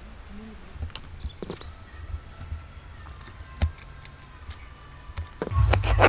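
Kitchen knife slicing green chillies: a few light, sparse clicks of the blade through the chillies, then a quick run of knife strikes on a cutting board near the end.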